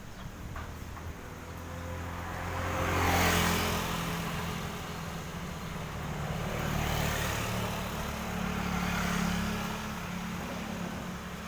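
Strong wind rumbling and buffeting on the microphone, with a motor vehicle's engine and tyre noise swelling past about three seconds in and again a few seconds later.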